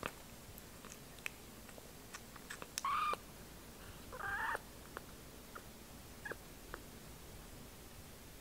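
Young kitten mewing twice, short high calls about three seconds and four seconds in, with faint scattered clicks between.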